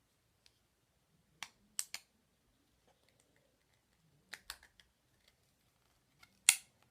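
Hard plastic toy parts clicking and snapping together as a target is fitted: a cluster of three clicks about a second and a half in, a few more a little past four seconds, and one loudest snap near the end.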